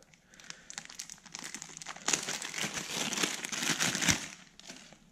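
Clear plastic bag crinkling as hands open it and pull a coiled cable out. The crackling builds and is loudest in the middle couple of seconds, then dies away near the end.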